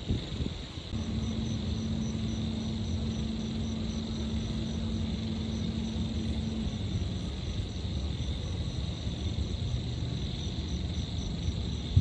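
Night city ambience: a low rumble of distant traffic under steady high-pitched insect chirring, one insect pulsing about three times a second. A steady low hum sounds from about a second in and stops a little before seven seconds.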